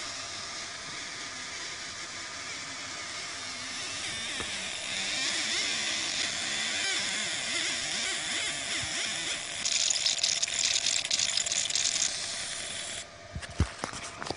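Fiber laser marking machine engraving square steel: a steady high-pitched hiss and buzz as the beam works across the metal. About ten seconds in it turns to a louder, rapid crackle, then stops abruptly near the end, followed by a couple of short knocks.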